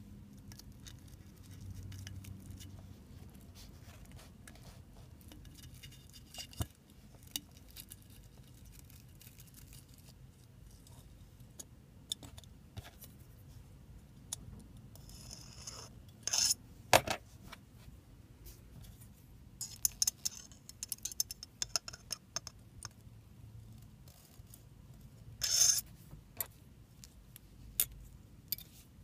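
Scattered small clicks, scrapes and rustles of a model ship and a metal tool knocking and rubbing against a glass bottle and its neck, with a cluster of sharper clicks about halfway through and a short louder scrape near the end.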